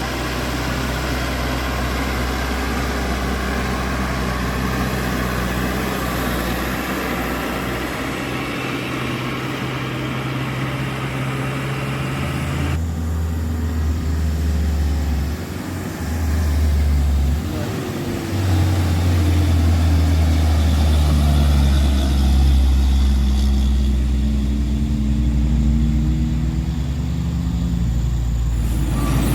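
Heavy diesel truck engine running low and steady under load, as on a steep climb. About 13 seconds in the sound changes abruptly to a louder, deeper engine drone that drops off briefly twice.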